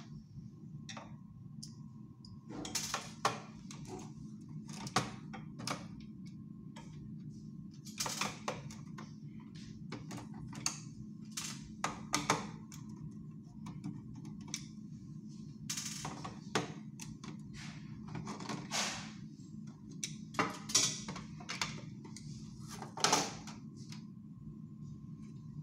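Irregular plastic clicks, knocks and rattles as a photocopier drum unit's plastic housing is handled and taken apart, over a steady low hum.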